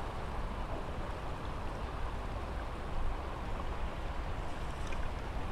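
Steady rushing of the river current, with a low rumble from wind on the microphone.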